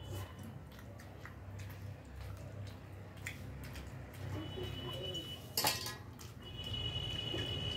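Eating rice and curry by hand from metal plates: small scattered clinks and scrapes of fingers and food against the plates, with one louder sharp clink of metal tableware about five and a half seconds in. A thin high steady tone sounds in the second half.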